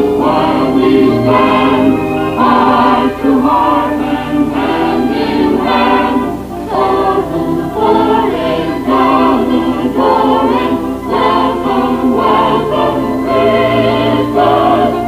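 A choir singing a song with musical accompaniment, with held, wavering notes.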